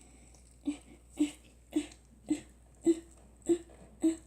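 Slime squelching in a steady rhythm as it is worked and mixed with instant snow, about seven squelches a little over half a second apart, starting under a second in.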